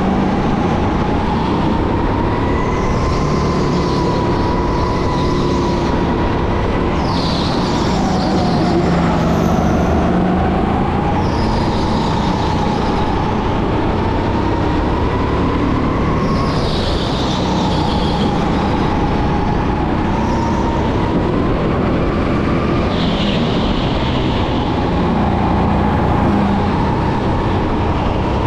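Electric racing kart's motor whining, its pitch rising and falling as the kart speeds up and slows, with tyres squealing briefly several times through the corners.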